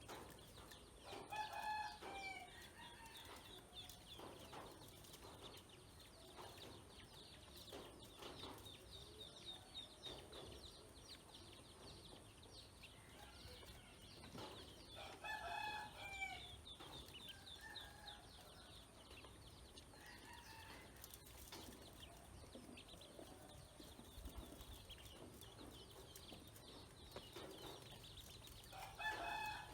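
A rooster crowing three times, roughly every fourteen seconds, over a continual faint high peeping of ducklings.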